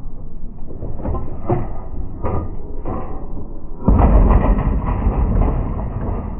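Scrap metal thrown off a pickup bed onto a scrap yard pile: several separate clanks and knocks, then about four seconds in a louder, continuous heavy clatter with a deep low end.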